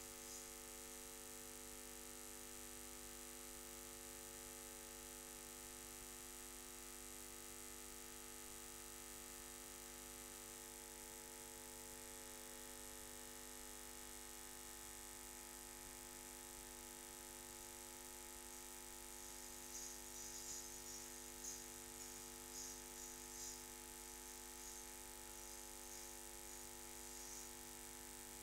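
Steady low hum made of several constant tones, with a few faint high clicks or jingles about twenty seconds in.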